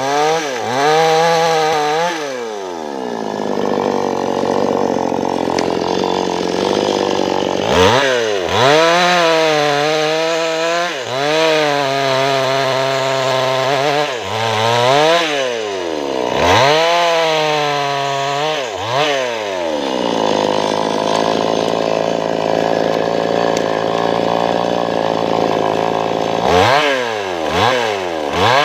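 Maestro Plus CS6500L two-stroke chainsaw cutting felled teak, the engine revved up and let drop back toward idle again and again. It is held at high revs under load for several seconds at a time, once early on and again in the latter part.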